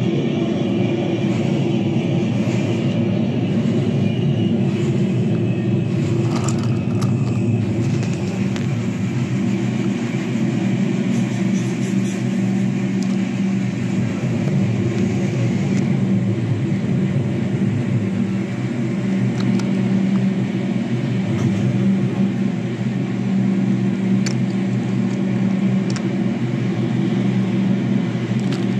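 Wooden toy subway cars rolled by hand along a wooden track: a steady rolling rumble of wooden wheels on wood, with a few faint clicks.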